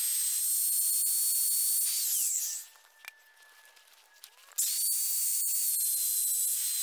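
Handheld wood router running with a high whine and hiss as it cuts a chamfer along a wooden tie beam. About two seconds in it is switched off and its pitch falls as it winds down to near silence. A couple of seconds later it starts again abruptly and runs on.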